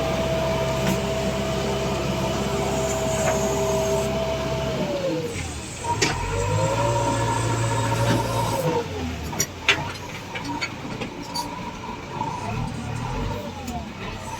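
JCB 3DX backhoe loader's diesel engine working: a steady note that drops in pitch about five seconds in, then revs up and back down, with a few sharp knocks.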